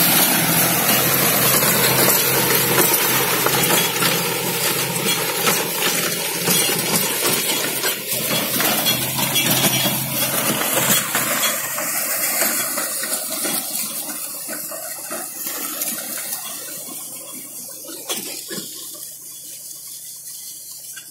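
John Deere 5045D diesel tractor driving a rotavator that churns soil and banana stalks, a dense rushing and crunching over the engine's note, fading steadily as the tractor works away.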